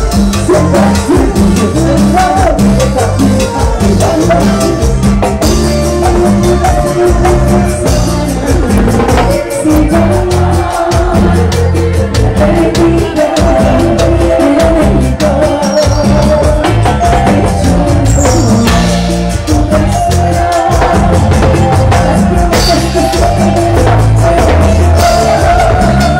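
Live band playing Latin American dance music with drums and shaken percussion, a woman singing lead into a microphone over a steady beat.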